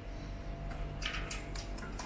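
A few light clicks and taps, scattered through the middle, from handling the steel parts of a TV stand over a low steady hum.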